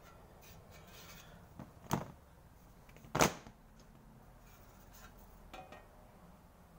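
Two sharp knocks about a second apart, the second louder, with faint handling scrapes afterwards, as a sheet-metal repair panel is handled at the English wheel.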